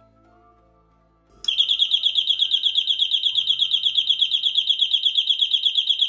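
Electronic alarm, switched on through a Raspberry Pi relay, sounding a loud high-pitched tone that pulses rapidly and evenly, starting about a second and a half in.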